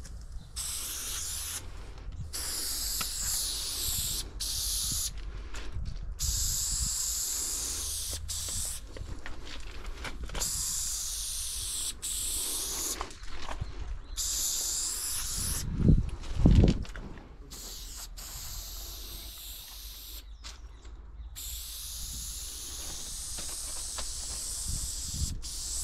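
Aerosol spray paint can hissing in repeated bursts of a second or two, with short breaks as the painter lifts off. About two-thirds of the way through come two low thuds.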